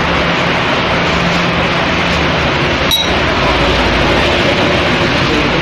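A steady rushing background noise, with one bright clink about three seconds in: a spoon knocking against the bowl of mashed potato mixture.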